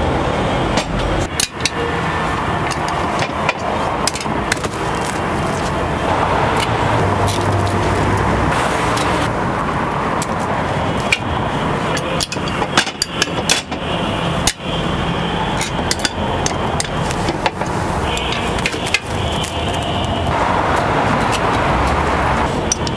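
Sharp metallic clicks and clanks of a metal pick tapping and prying at cast-iron fish-shaped bread (ingeo-ppang) molds, over a steady bed of street noise.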